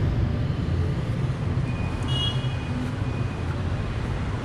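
Street traffic noise: motorbikes and cars passing, a steady low rumble, with a short high-pitched beep about two seconds in.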